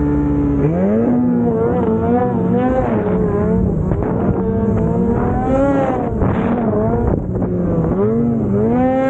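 Snowmobile engine running hard, its pitch rising and falling over and over as the throttle is worked.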